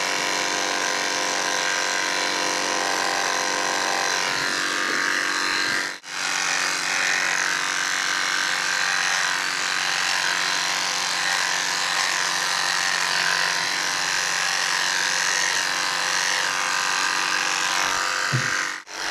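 Electric pet clippers running steadily as they shave a cat's fur, with a dense buzz. The sound drops out sharply twice.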